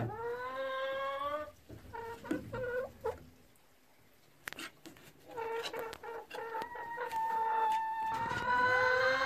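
A hen settled in a straw nest box, calling. First comes a long rising call, then a few short clucks. After a brief quiet spell about four seconds in, drawn-out calls build into a long, held call near the end.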